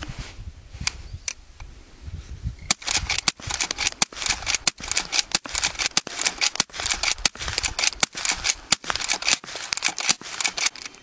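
A Henry lever-action .22 carbine fired in rapid succession, sharp small-calibre cracks mixed with the metallic clack of the lever being worked between shots. A couple of single clicks come first, then the fast string starts about three seconds in and runs on at several cracks and clacks a second.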